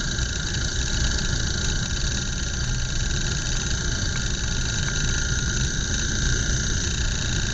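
Small DC motor, powered by two batteries in series at 3 volts, running steadily at about 2,000 rpm: an even, unchanging whir and hum.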